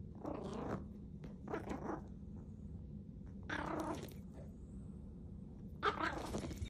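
A dog making short growling yaps in four separate bursts, each about half a second to a second long, a second or two apart.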